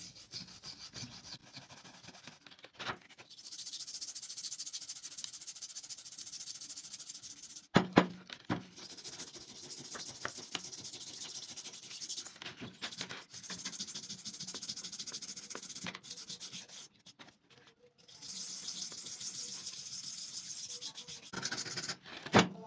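Hand sanding of the rusty axe, abrasive rubbing strokes in runs of a few seconds with short pauses between. A few sharp knocks come about eight seconds in and again near the end.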